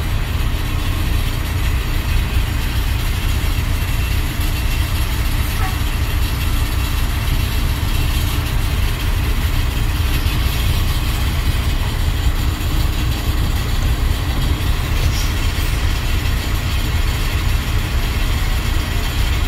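Large diesel bus engines running at idle, a steady low rumble, with rain falling over it.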